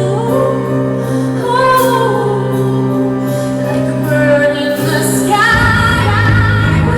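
Live pop performance: a woman singing held, gliding notes over sustained accompaniment, with bass and drums coming in about five and a half seconds in.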